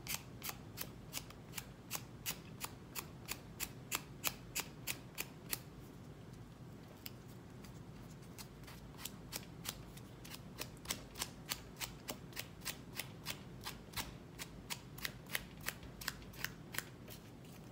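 Fingerboard grip tape being filed down along the deck's edge: quick, even scraping strokes, about three a second, with a pause of a couple of seconds in the middle.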